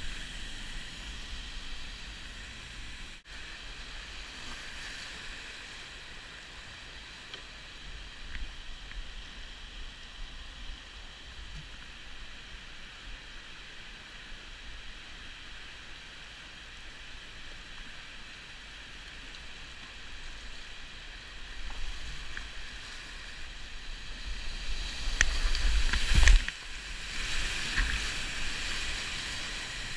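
Steady rush of whitewater around a kayak running a river rapid, with louder splashing and churning near the end as the boat drives through a wave.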